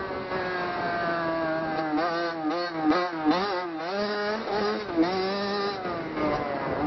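Motocross dirt bike engine running on the track, its revs rising and falling quickly several times over a few seconds as the throttle is worked, steadier at first and again near the end.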